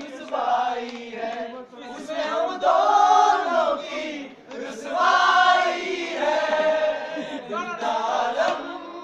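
A group of men singing together in unison, in long phrases with two loud swells, about three and five seconds in.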